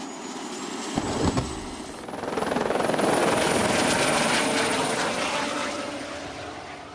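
Helicopter flying past: the rotor's blade chop and a high steady whine swell over a couple of seconds, hold, then fade as it moves away.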